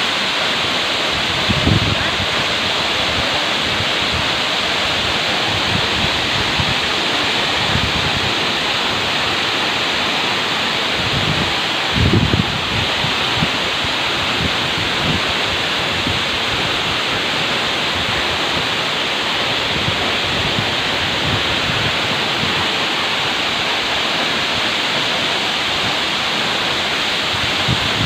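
Tall waterfall pouring into its plunge pool: a steady, loud rush of falling water. A couple of brief low bumps come about two seconds and twelve seconds in.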